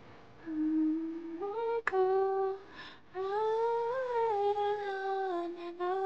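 A young woman humming a slow tune unaccompanied, holding long notes in three short phrases, with a small click about two seconds in.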